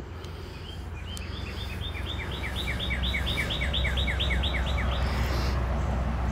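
A songbird singing a fast run of repeated down-slurred chirps, about four or five a second, growing louder and stopping about five seconds in. Beneath it runs a low steady rumble that swells about halfway through.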